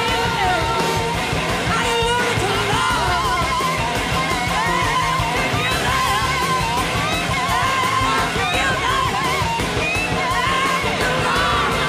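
Live rock band playing, led by an electric slide guitar on a red Gibson SG, its notes gliding and wavering, over bass and drums.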